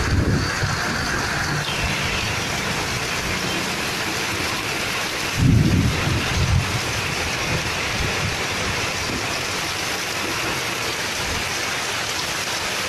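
Heavy rain pouring down in a windstorm, a dense steady rush of water, with a brief louder low rumble about five and a half seconds in.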